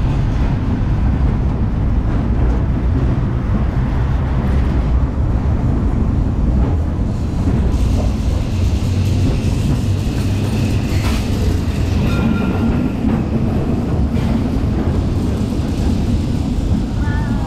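1906 double-decker electric tram running along its track, heard from its roof: a steady low rumble of wheels and running gear on the rails. A single sharp knock comes about two-thirds of the way through.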